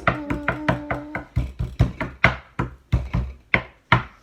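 A quick, uneven series of sharp taps and knocks, like something being drummed on a hard surface, with a steady pitched note under them that stops about a second in.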